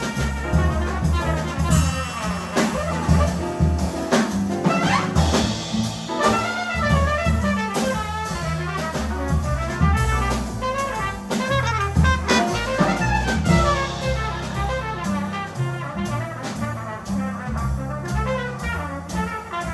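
Live jazz quartet of trumpet, piano, double bass and drum kit playing, with quick runs of notes over a busy bass line and drums.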